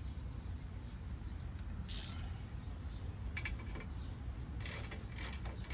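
Ratchet wrench clicking on the caliper bracket bolts: a few scattered clicks at first, then a quicker run of clicks near the end.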